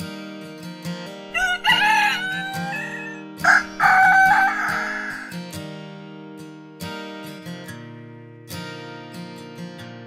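Rooster crowing loudly about a second in, a call with falling slides followed by a long held note, over plucked acoustic guitar background music.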